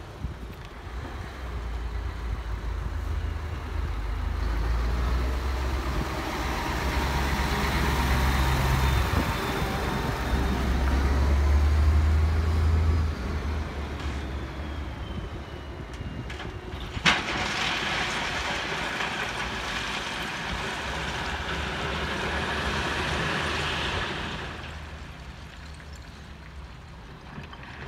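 Heavy truck's engine running with a deep rumble that swells and stops about 13 seconds in. Over it, a long rushing noise of gravel being dumped, with one sharp knock partway through; the rush fades out about 24 seconds in.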